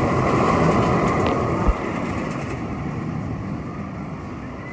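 Steel roller coaster train rumbling along its track, growing fainter as it runs away through the far elements, with one low thump about two seconds in.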